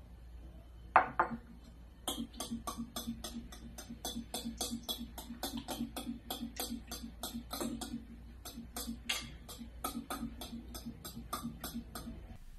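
Metal spoon beating eggs and milk in a glass bowl: rapid, even clinking against the glass, about four to five strokes a second, starting about two seconds in. A single sharp clink comes about a second in.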